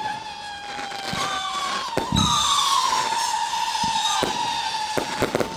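Fireworks whistling: several long whistles sounding together, each slowly falling in pitch, broken by sharp bangs and pops. A louder burst comes about two seconds in, and a quick run of bangs comes near the end.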